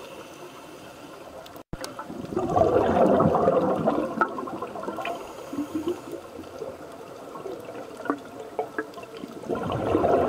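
Scuba diver's regulator exhaust underwater: exhaled bubbles rush out in a burst a couple of seconds in and again near the end, the slow rhythm of a diver's breathing. Faint clicks sound in the quieter stretch between.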